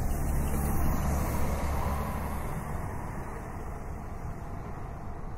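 Steady low rumble of city traffic ambience that swells about a second in and then slowly fades.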